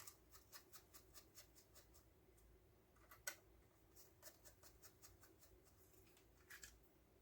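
Faint small clicks and ticks of hand work on the controller's wiring: a quick run of ticks in the first two seconds, one sharper click a little past three seconds, and a double click near the end.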